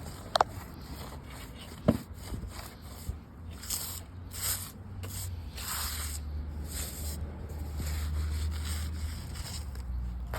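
Weeds being scraped and pulled out from between deck boards: several rough scraping strokes, with two sharp knocks in the first two seconds.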